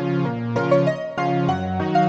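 Background music: an electronic keyboard or electric-piano melody with chords changing every fraction of a second.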